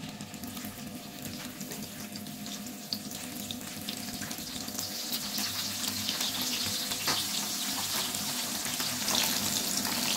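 Tengra catfish frying in hot oil in a pan, sizzling with many small crackles. The sizzle grows steadily louder as more fish go into the oil one by one.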